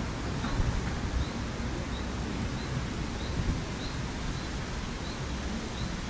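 Wind buffeting the microphone as a steady low rumble and hiss, with a faint, short, high chirp repeating about every 0.6 seconds.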